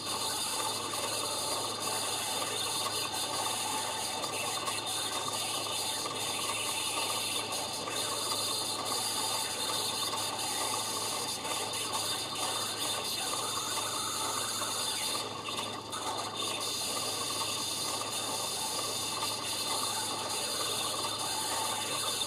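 Homemade stepper-motor turntable with 3D-printed reduction gears turning a record at 33 rpm, its needle on the record: a steady ratcheting, grinding whir from the motor and gears over a constant low hum. This vibration from the direct gear drive swamps the record's own sound.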